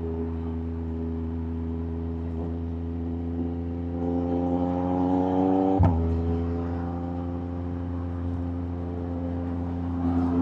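Yamaha MT-09's three-cylinder engine running under way, its pitch climbing as it accelerates about four seconds in. A single sharp knock comes near six seconds, after which the engine runs steadily again.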